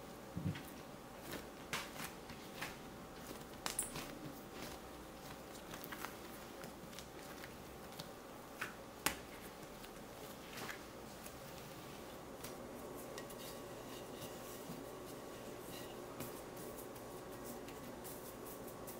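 Bread dough being kneaded by hand on a silicone mat: scattered soft taps, slaps and squishes, frequent for the first ten seconds or so and then only now and then, over a steady faint hum.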